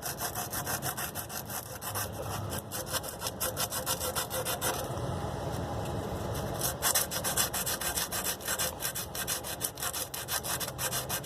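60-grit sandpaper rubbed by hand back and forth on a water supply pipe in quick strokes, several a second, scouring the paint off down to bare metal so the joint can be soldered.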